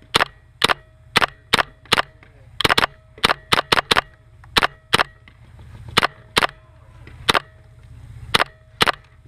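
Paintball marker firing about eighteen sharp shots in irregular bursts, some spaced a fraction of a second apart.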